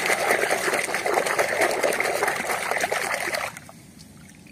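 Muddy, soapy water splashing and sloshing in a plastic basin as a hand scrubs a toy under the surface. It stops suddenly about three and a half seconds in.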